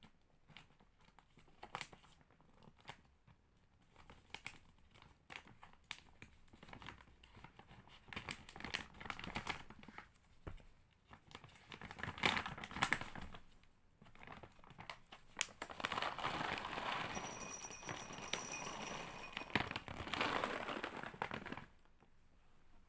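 Crinkling and rustling of a plastic dry cat-food bag being handled, then a longer rattling rush of dry kibble pouring into a ceramic bowl for several seconds, ending suddenly near the end.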